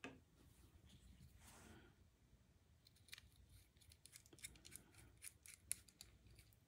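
Faint light clicks and ticks from handling a folding knife and small screw parts by hand. There is a soft knock at the start, then a scattered run of small clicks from about three seconds in.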